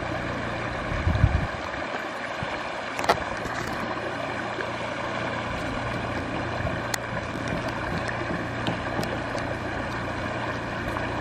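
Steady rushing of a river flowing over rocks, with a low thump about a second in and a short sharp click about three seconds in.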